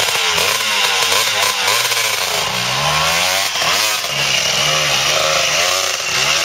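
Dirt bike engine revved hard again and again, its pitch repeatedly rising and falling, as the bike struggles to get going up a steep slope.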